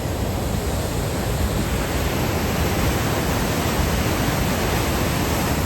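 Steady, loud rush of Månafossen, a 92-metre freefall waterfall, and its stream in heavy flow.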